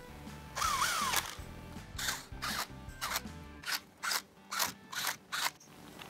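Cordless drill/driver running T30 Torx bolts down into the timing chain guides: a brief spin with a whine that rises and falls, then a string of short, sharp bursts as the bolts are snugged.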